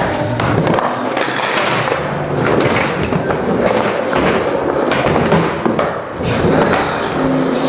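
Skateboard wheels rolling on concrete and a wooden ramp, with repeated thuds of the board hitting and landing, over background music.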